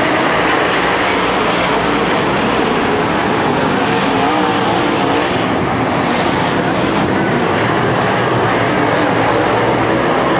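A pack of dirt-track late model race cars at racing speed, their V8 engines a loud, steady blend of overlapping engine notes that rise and fall in pitch.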